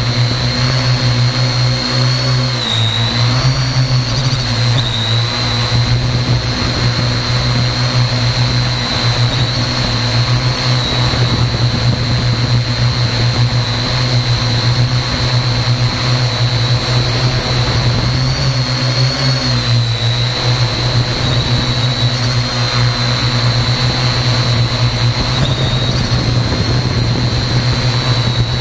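Parrot AR.Drone quadcopter's electric motors and propellers buzzing steadily in flight, picked up close by the camera mounted under the drone. A high whine over a low hum dips briefly in pitch about three seconds in and again about twenty seconds in.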